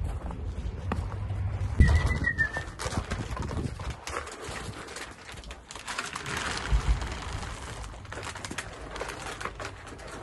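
Dry dog food poured from a bag onto the frozen ground, a rustling patter about six seconds in. Earlier, about two seconds in, a bump comes with a short high chirp.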